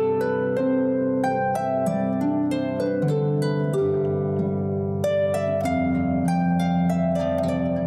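Instrumental music: a harp playing a quick stream of plucked notes over held lower notes.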